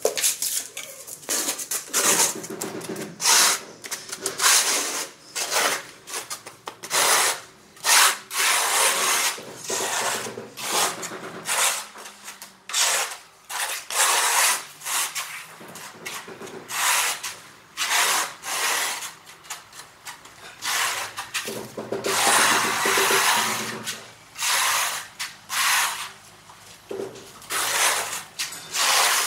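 Steel notched trowel scraping and combing a bed of cement tile mortar on a concrete floor, in repeated sweeping strokes with short gaps between them.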